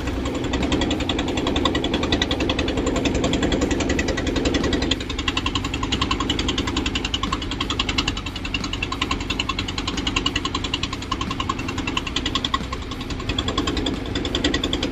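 An engine running steadily with a fast, even firing rhythm; its lower sound drops back slightly about five seconds in.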